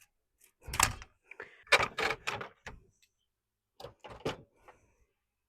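A few irregular knocks and clatters of hard objects being handled and set down, coming in three short clusters about a second, two seconds and four seconds in. This is the freshly cut screen frame piece and tools being moved about once the sawing has stopped.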